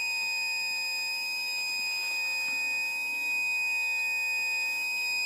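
Battery backup sump pump alarm sounding one steady, unbroken high-pitched tone, the warning that the pump is running on battery power. Underneath is a faint steady hum from the backup pump's motor, which is running but moving no water out of the pit.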